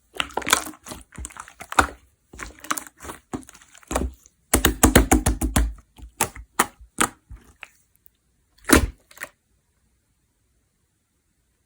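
Clear slime being pressed and squished by hand, giving quick, irregular crackling pops and clicks, thickest in a dense run a little past the middle. The sounds stop shortly before the end.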